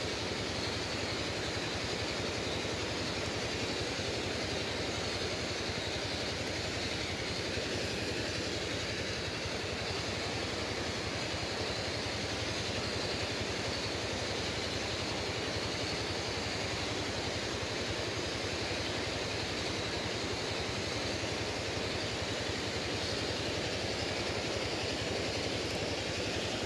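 Steady rush of stream water running over a shallow rocky riffle and stone weir.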